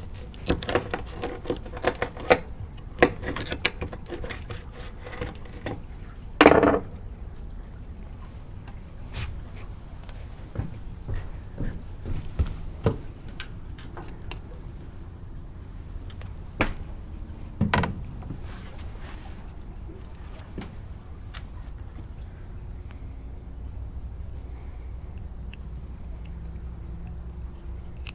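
Insects chirping in one steady, high, even tone, with knocks and taps from a knife cutting up a small sunfish for catfish bait on the dock deck: a quick run of taps in the first few seconds, a loud thump about six and a half seconds in, and two more knocks around sixteen to eighteen seconds.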